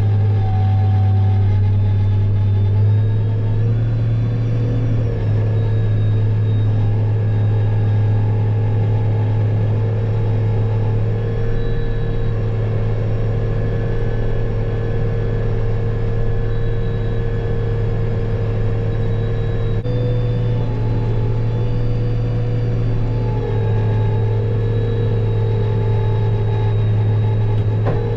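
Heavy diesel engine of corn-harvest machinery running steadily under load, a deep drone with faint whining tones above it that shift slightly a few times.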